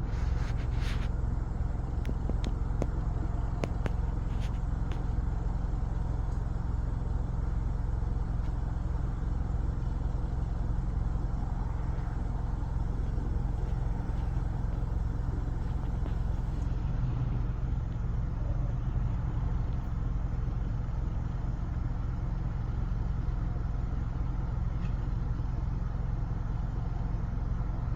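Steady low rumble of a running vehicle, with a few faint clicks in the first few seconds.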